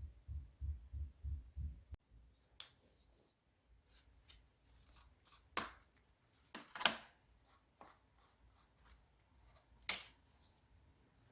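Hands cleaning and handling a plastic cassette boombox: scattered small clicks, scrapes and rubs, with a soft low thumping about three times a second in the first two seconds.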